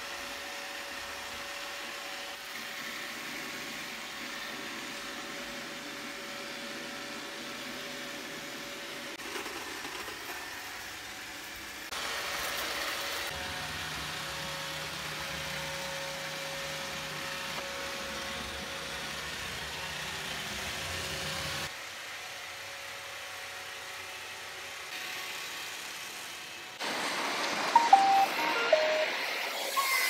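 iRobot Roomba 694 robot vacuum running: a steady motor hum with a constant whine, its level shifting abruptly a few times. The last few seconds are louder and uneven, with short chirps.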